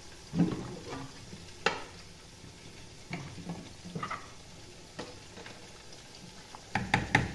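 Wooden spoon stirring thick, cooked lentil dal in a metal pot, knocking against the pot now and then, with a quick run of louder knocks near the end. A faint sizzle of onions frying in oil runs underneath.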